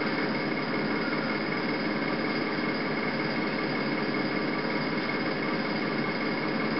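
Steady hiss-like background noise with a faint high whine running through it, and no distinct sound events.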